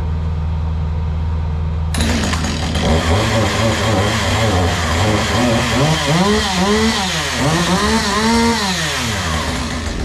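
A gas engine revving up and down over and over, its pitch rising and falling about once a second. It comes in suddenly about two seconds in, over a low steady engine hum.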